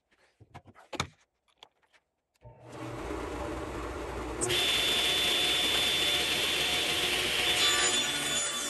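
A few light knocks as the block and push block are set against the fence, then the table saw switches on and its motor comes up to a steady run. About two seconds later the tilted blade starts ripping a corner off a walnut block, a loud steady cutting noise with a high whine.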